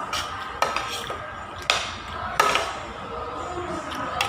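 Cutlery and dishes clinking while a meal is eaten: a few sharp, separate clinks over a steady background hum.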